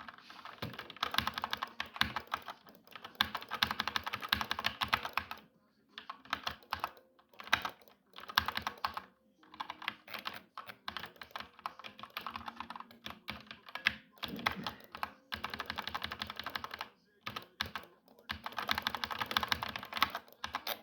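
Computer keyboard being typed on fast: dense runs of key clicks lasting a few seconds each, broken by short pauses.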